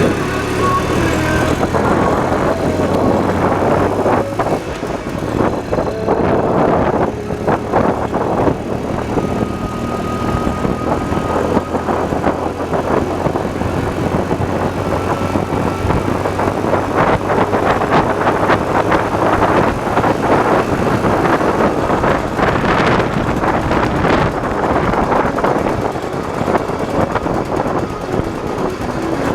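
IZh Planeta 5 motorcycle with sidecar under way, its single-cylinder two-stroke engine running steadily, mixed with wind and road noise.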